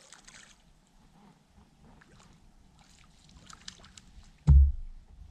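A hooked crappie splashing at the water's surface, then a single loud, heavy thump about four and a half seconds in as the fish is swung up into the boat.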